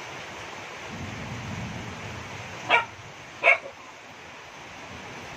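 Heavy rain falling steadily on standing floodwater. Near the middle come two short, loud animal calls less than a second apart.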